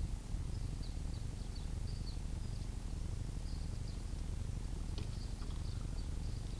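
Steady low wind rumble on the microphone, with faint short high chirps of small birds scattered through it.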